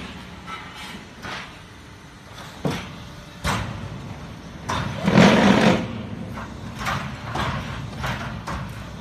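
A QT7-15 hydraulic concrete block making machine running through its cycle: sharp metal clanks and knocks over a steady low hum, with a louder, longer rattling rush about five seconds in.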